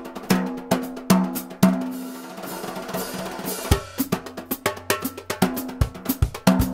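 Stripped-down cajon drum set played with wire brushes in a steady groove: a ringing piccolo snare, hi-hats, and low cajon kick hits. About two seconds in, the strokes give way to a stretch of steady brush swishing before the beat picks up again.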